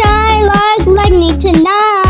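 Pop song with a lead voice holding long sung notes over a backing track with a steady drum beat and bass.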